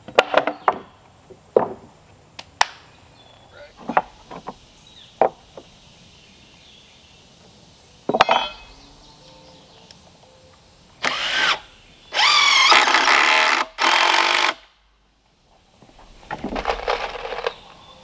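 Wooden 2x4 boards knocking as they are set down and laid out, then a cordless drill driving screws into the 2x4s in several runs, the longest about two and a half seconds, its motor whine rising and falling.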